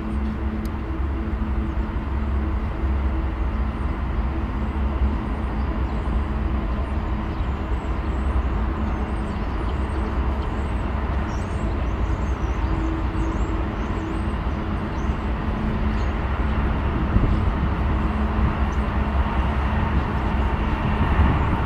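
GE AC44C6M diesel locomotive at the head of a coal train, its engine running with a steady low rumble and hum as it approaches, growing louder near the end. Faint bird chirps in the middle.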